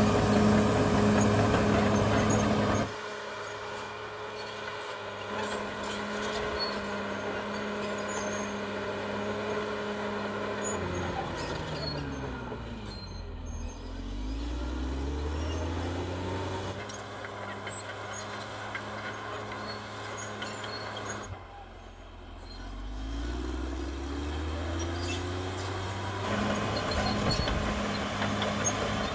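CAT D6R XL bulldozer's diesel engine running. It is louder for the first few seconds, then drops suddenly. Twice its pitch sinks as the engine slows and then climbs again as it picks up.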